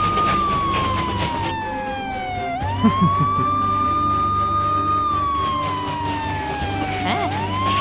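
Police car siren wailing in slow cycles: the pitch climbs quickly, holds high, then slides slowly down, with a low engine hum under it. A few short thuds about three seconds in.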